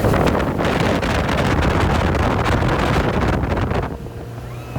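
Wind rushing and buffeting over the microphone on a fast-running motorboat, with water noise. About four seconds in it eases off, leaving the boat engine's steady hum.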